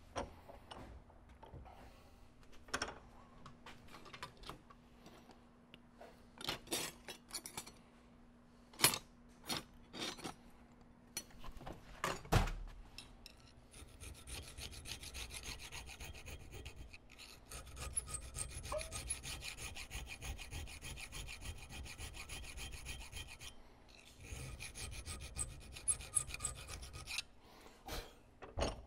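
Hand file cutting a metal part, removing the excess from a hand-made replacement pistol transfer bar. The first part has scattered taps and short scrapes with a knock about twelve seconds in. After that come about ten seconds of steady, rapid file strokes, a brief pause, and a few more seconds of filing.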